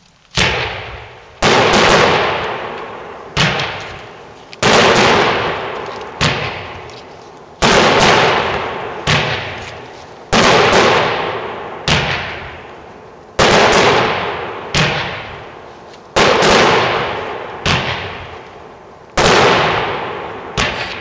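Consumer firework cake, a 21-shot multicolor repeater with salutes, firing shot after shot about every one and a half seconds. Each shot is a sharp bang that trails off over about a second.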